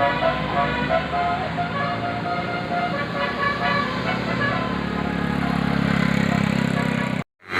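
A bus's multi-tone 'telolet' horn playing a quick tune of short notes over the running engine, which grows louder about five seconds in. The sound cuts off abruptly near the end.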